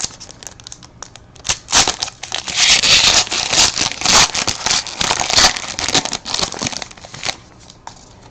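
Crinkling and tearing of a trading-card pack's plastic wrapper as it is ripped open, with many sharp crackles. It is loudest through the middle and dies down near the end.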